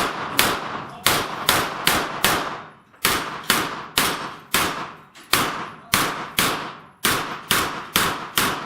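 Rapid semi-automatic gunfire, about twenty shots in a steady string at two to three shots a second, with two brief pauses where the shooter moves between targets or positions.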